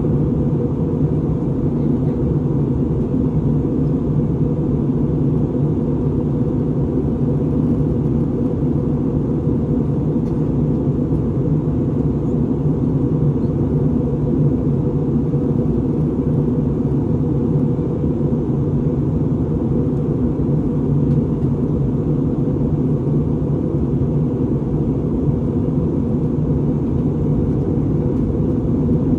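Steady low cabin rumble of an Airbus A320neo, heard from inside the aircraft: engine and airflow noise holding an even level with no change in pitch.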